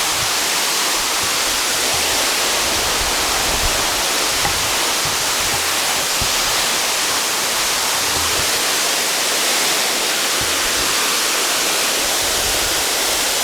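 Waterfall: steady rushing of falling water, an even unbroken hiss.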